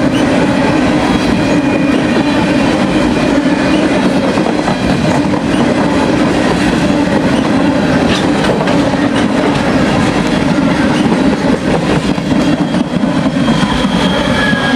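Freight train cars rolling past close by: a loud, steady rumble of steel wheels on rail with occasional clicks. A thin, high wheel squeal sets in near the end.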